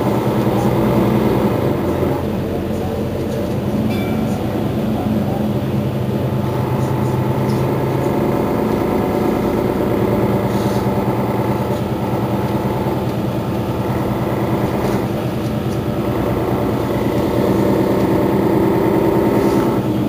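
Mercedes-Benz Citaro facelift city bus idling while stationary: a steady, low engine drone.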